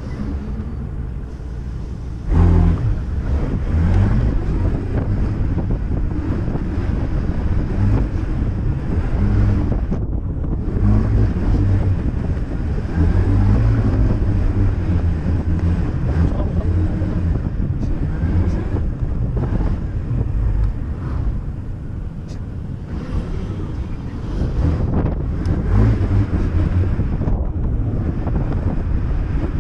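Yamaha Cygnus 125 scooter's single-cylinder engine and tyres on the road, getting sharply louder about two seconds in as it pulls away from a standstill, then running at riding speed. Wind buffets the microphone throughout, a heavy uneven rumble.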